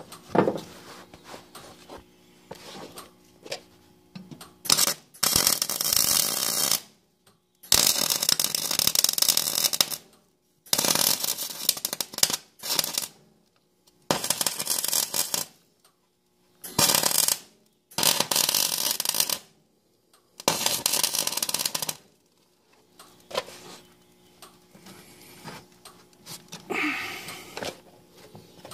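Electric arc welding in about seven short runs of one to two seconds each, with brief pauses between: a thin sheet-steel patch being stitch-welded onto a rusted steel mower deck. Light knocks and handling of the metal before and after the runs.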